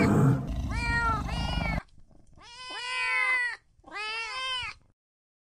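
Lion cubs mewing: cat-like calls that rise and fall in pitch, two short ones about a second in, then two longer, fuller calls.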